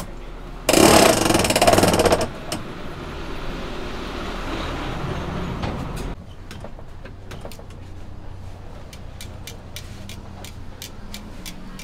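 A cloth rubbed over the hot iron plates of a baby castella mould makes a loud rushing hiss starting about a second in and lasting about a second and a half, followed by a softer sizzle. About halfway, this gives way to many quick, sharp clicks of a metal pick against the iron mould as the cakes are picked out.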